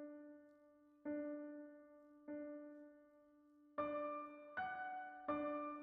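Soft, slow background piano music: single held notes a second or so apart, each fading away, with higher notes joining the low repeated note in the second half.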